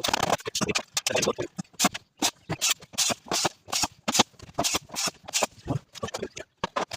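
A quick, irregular run of sharp clicks, several a second.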